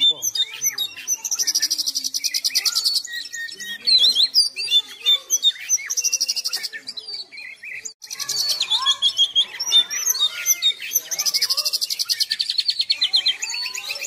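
Oriental magpie-robin singing continuously: a run of varied whistled notes and sharp chips, broken by two long, fast rattling trills, one starting about a second in and another after a brief lull midway.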